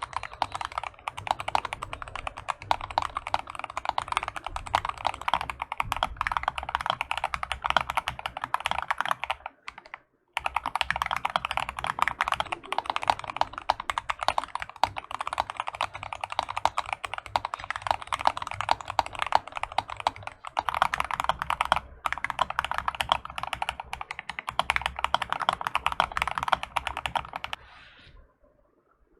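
Fast, continuous typing on an Akko ACR 75 acrylic gasket-mounted mechanical keyboard with Akko CS switches, sound-testing Cherry-profile and ASA-profile keycaps. The typing breaks off briefly about ten seconds in, and stops about a second before the end.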